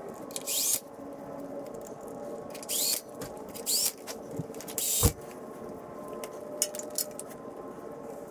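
Cordless drill with a socket running the stator-cover bolts into a motorcycle engine case in four short bursts, its motor winding up in pitch on each. A sharp knock comes about five seconds in.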